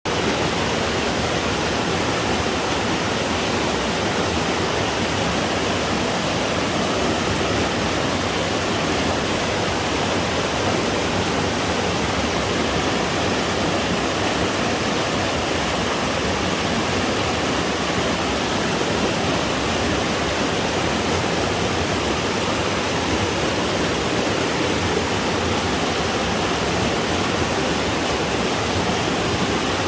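Two-tiered twin waterfall on a mountain stream, water falling in a steady, unbroken rush.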